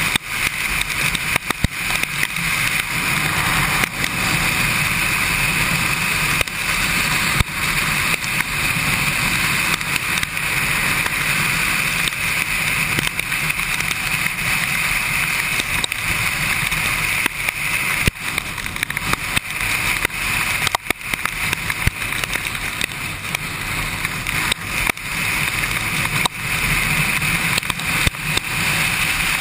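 Kawasaki Ninja sportbike running steadily on a rain-soaked road: engine and wind noise under a constant hiss of tyre spray and rain, with many small ticks from raindrops hitting the camera.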